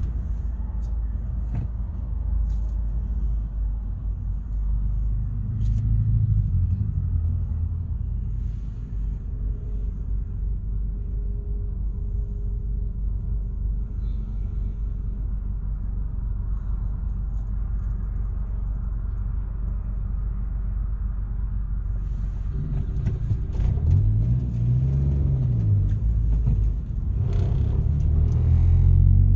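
A car driving through city streets: a steady low rumble of engine and road noise. About two-thirds through, a pitched tone in the rumble rises and falls, and the noise grows louder near the end.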